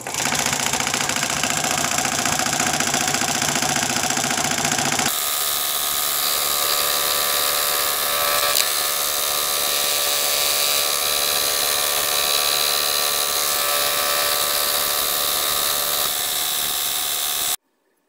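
Scroll saw running, its thin blade reciprocating through the table; about five seconds in the sound changes as the blade starts cutting a curved teak workpiece. The sound cuts off suddenly near the end.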